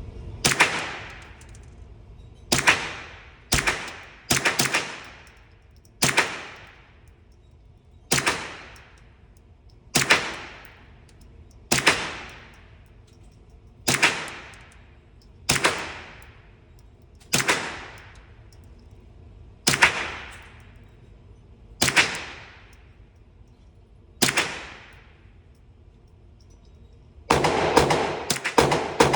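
Suppressed firearm shooting slow aimed single shots, about one every two seconds, each a sharp crack with a short fading tail. Near the end a rapid string of several shots follows.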